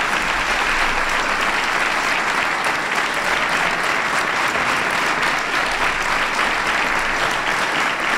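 Audience applauding, a roomful of hands clapping at a steady level.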